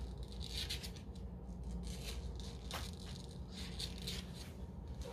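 Mother cat in labour licking and shifting her body on the floor of a plastic cabinet: a few faint, brief rustles and scrapes over a steady low hum.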